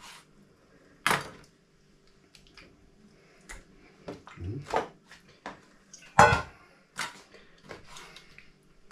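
Irregular knocks and light clatter of kitchen work as meat is cut and the pieces laid into a kazan, with the loudest knock about six seconds in and another about a second in.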